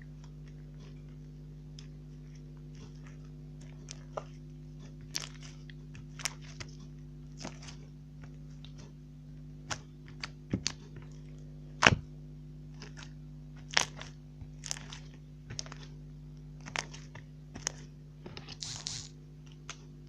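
Slime being handled and squeezed, giving irregular sticky pops and clicks, the loudest about twelve seconds in and a short crackle near the end, over a steady low hum.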